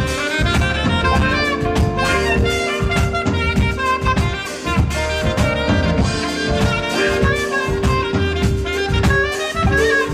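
Saxophone playing a jazz melody with held notes over a steady drum-kit beat and bass line.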